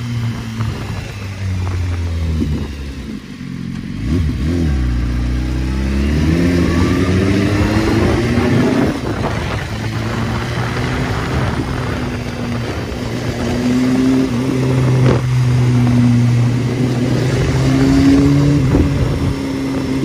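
Sport motorcycle engine heard from the rider's seat, easing off about three seconds in, then climbing in revs as it accelerates and settling into a steady cruise with small rises in pitch, over a rush of wind.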